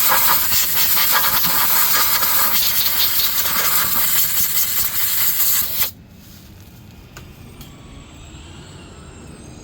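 A loud, steady hiss that cuts off suddenly about six seconds in, followed by a faint low background hum.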